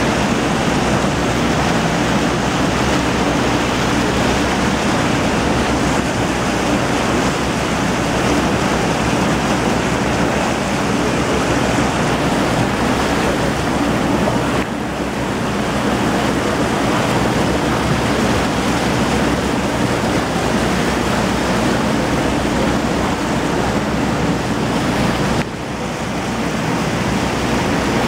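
A tour boat's engine running as a steady low drone under a loud, even rush of water and wind. The rush dips briefly twice.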